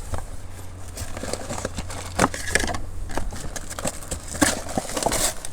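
Packaging of new cabin air filters being opened by hand: irregular rustling, crinkling and sharp clicks.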